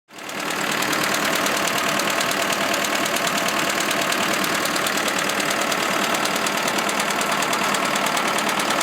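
Cummins 4BTA 3.9-litre four-cylinder turbo diesel running with a steady, rapid knock, which the owner takes for a probable failed rod bearing.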